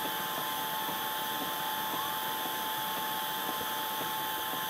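Laser engraver running, with a steady whir of its fans and exhaust, a couple of steady tones and faint ticks from the moving head.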